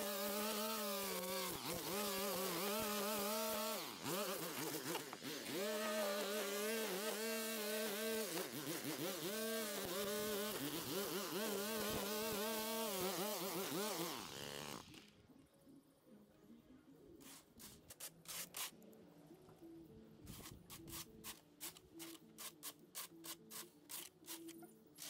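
Small petrol engine of lawn-care equipment running, its pitch wavering up and down, then cutting off suddenly a little past halfway. Quiet music with a ticking beat follows.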